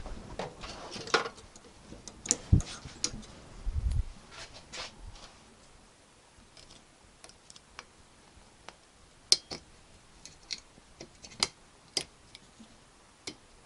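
Small screwdriver picking and prising at a circlip in the bore of a classic Mini's clutch master cylinder held in a vise. Handling knocks and a couple of low thumps in the first few seconds, then sparse, sharp metal clicks as the tip catches the clip.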